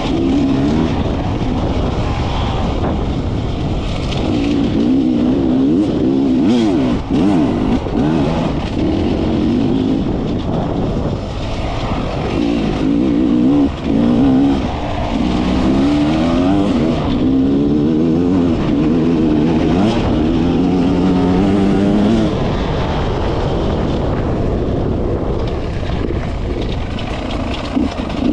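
Beta enduro motorcycle's engine being ridden on a dirt trail, its pitch rising and falling again and again as the throttle is opened and closed.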